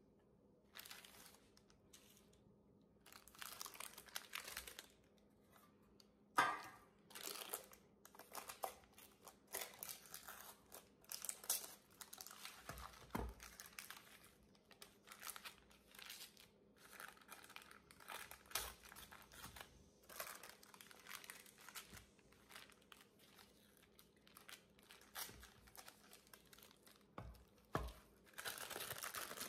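Parchment paper crinkling and rustling in irregular bursts as it is handled and peeled back from a frozen slab, with a few soft knocks.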